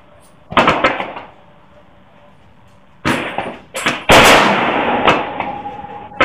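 Rifle shots on a covered firing line: a sharp shot about half a second in, more shots around three seconds in, and the loudest shot about four seconds in, ringing on for about two seconds.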